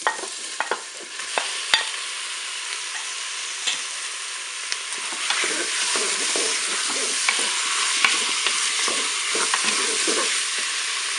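Chicken pieces and chopped onion sizzling in oil in a Cookeo multicooker's bowl on its browning setting, stirred with a wooden spoon. A few sharp knocks in the first two seconds as the pieces drop in, and the sizzle grows louder about five seconds in.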